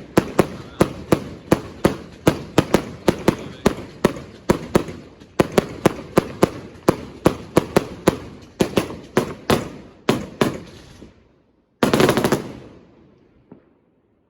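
A multi-shot firework cake firing a rapid volley of sharp bangs, about three a second. After a brief pause it ends with one louder, longer burst that dies away.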